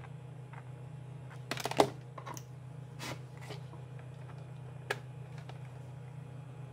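Handling noise from a plastic charger brick and its cable being turned over and plugged in: a few sharp clicks and knocks, the loudest about two seconds in, over a steady low hum.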